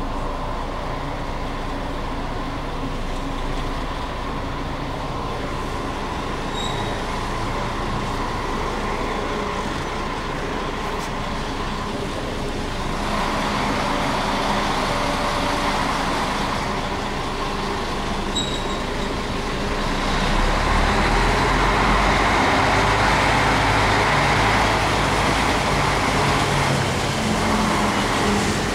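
Heavy goods lorry's diesel engine running as the truck drives slowly, heard from inside the cab, with a steady whine. The engine gets louder about halfway through and louder again near the end. Two brief high beeps sound, one early on and one about two-thirds through.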